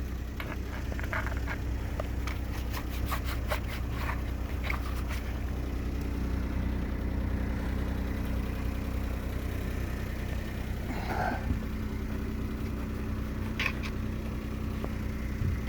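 Smart Fortwo's engine idling steadily, with scattered light clicks and scrapes of things being handled, mostly in the first few seconds and again near the end.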